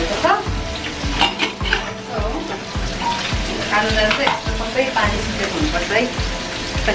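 Background music with a steady beat of about three low thumps a second and a melody, over shredded cabbage sizzling in a wok.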